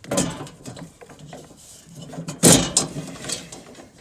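Metal door of an electrical sub-panel being opened and handled: a clatter near the start, lighter rattles, and a louder metallic bang about two and a half seconds in.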